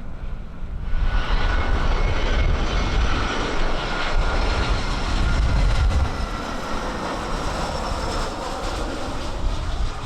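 Airplane engines passing: a rushing noise with a steady whine swells about a second in and eases off slightly after about six seconds, with wind buffeting the microphone underneath.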